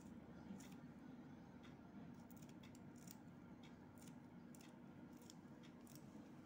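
Small kitchen knife cutting green chilli and other vegetables held in the hand: faint, crisp little snips, roughly one or two a second, over a low steady hum.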